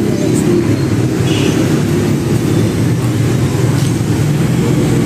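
Steady low rumble of a motor vehicle engine running, with no change in level throughout.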